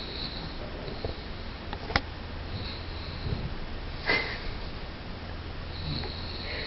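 A sleeper's snoring breath turning to sniffs and snorts, with a short click about two seconds in and a louder snort about four seconds in, over a steady low hum.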